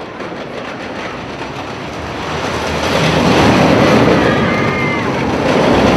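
Roller coaster train running on its track, a rushing rumble that swells and grows louder about two and a half seconds in as the cars come near. A brief high screech that falls in pitch comes near the end.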